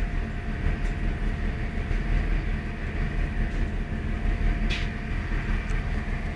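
Steady running rumble and hum of a First Great Western diesel multiple unit, heard from inside the passenger carriage as the train travels along the line. A short hiss comes about three-quarters of the way through.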